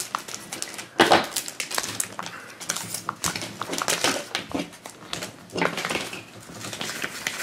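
Hands unwrapping a plastic-wrapped toy capsule and working the hard plastic capsule open: crinkling of the clear wrapper and a string of small plastic clicks and crackles, the sharpest about a second in.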